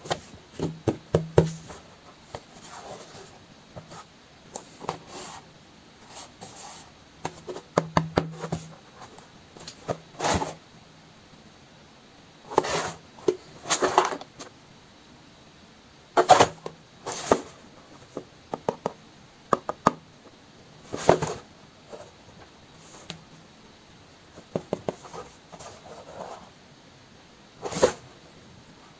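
Small cardboard box of building bricks handled and turned in the hands: fingers tapping and rubbing the cardboard, with irregular clicks and short scuffs and rustles each time the box is turned.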